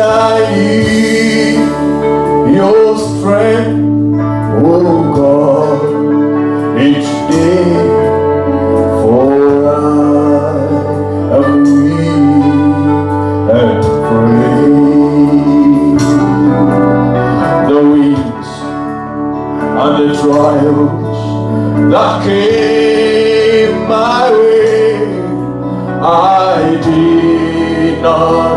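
Male gospel singing into a microphone over a live band of guitars and keyboard, with steady low notes underneath the sung melody.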